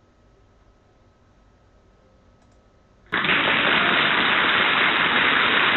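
Near silence for about three seconds, then a loud, even burst of static-like hiss starts abruptly and runs steadily with no pitch or beat: a slideshow sound effect marking the reveal of the quiz answer.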